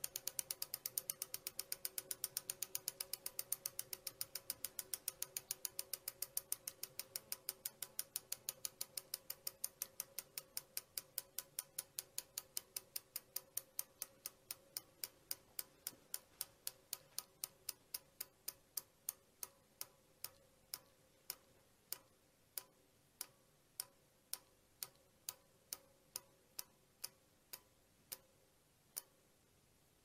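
A bicycle's freewheel ratchet clicks as the rear wheel coasts and spins down. The even ticks start fast and slow steadily until they stop shortly before the end.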